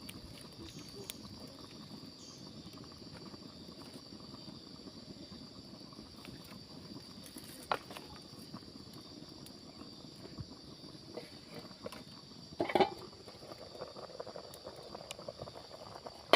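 Outdoor ambience: a steady high insect drone over low rustling, with a sharp click about eight seconds in and a louder short noise near the end.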